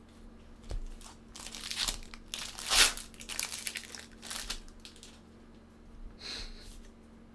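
A baseball card pack's wrapper being torn open and crinkled, in a run of rustling rips loudest about three seconds in, with one more short crinkle near the end.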